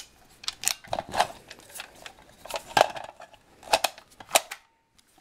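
Airsoft rifle's magazine release and curved magazine being worked by hand: a run of irregular sharp plastic-and-metal clicks and clacks, several a second, dying away shortly before the end.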